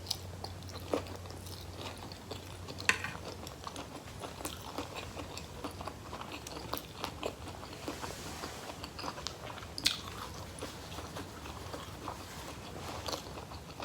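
A person chewing and crunching food close to the microphone: a steady run of wet mouth clicks and small crunches, with a few louder crunches about one, three and ten seconds in.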